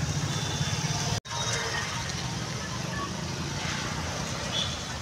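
Street traffic noise: a vehicle engine hums low for about the first second, the sound cuts out abruptly, then a steady traffic background continues.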